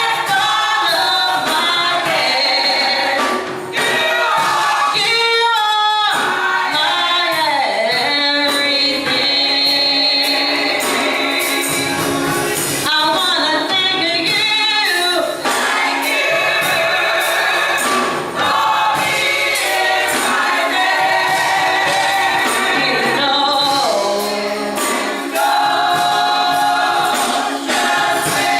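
Gospel choir singing with instrumental accompaniment and tambourine, loud and continuous.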